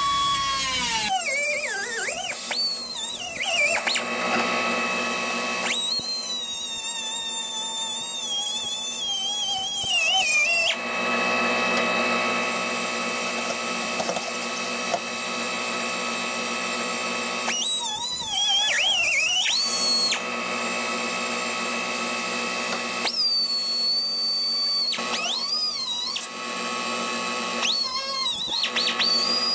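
Power drill whining at high speed as it bites into the car body's rusted sheet steel, in several bursts, its pitch sagging and recovering as the bit loads up. Near the end a grinder goes to work on the metal.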